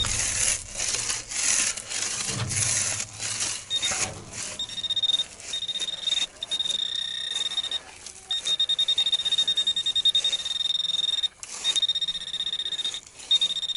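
Rustling, scraping noise for about the first four seconds. Then a metal detector's steady high-pitched tone sounds, cut by a few short gaps, as it reacts to metal in the sand.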